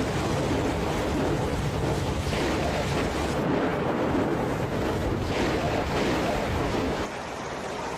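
Rushing water, a dense steady wash that swells in surges about every three seconds, dropping slightly and changing character about seven seconds in.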